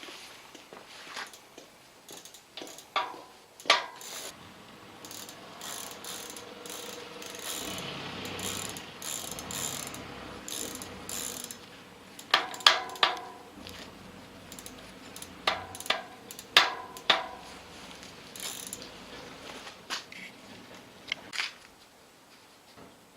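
Bicycle screw-on rear freewheel ratcheting, with scattered clicks and several sharp knocks in clusters. This is the knocking (kotsu-kotsu) noise from the rear sprocket, whose cause could not be found.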